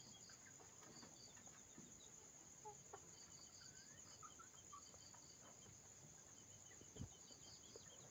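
Faint night insect chorus, a steady high trill with pulsing chirps, under a few soft clucks from roosting chickens. A soft knock comes about seven seconds in.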